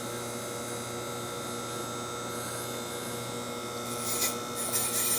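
Amada Meister Pro CNC surface grinder standing powered up with its spindle off, giving a steady machine hum with several steady tones. Near the end a rough rubbing, scraping noise sets in and grows louder.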